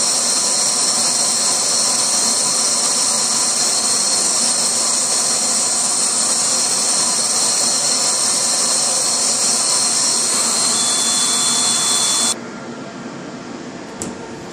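GCC Spirit GX CO2 laser engraver running while it engraves wood: a loud, steady hiss with a high whine. About twelve seconds in it drops sharply to a quieter, even machine hum, with one short click near the end.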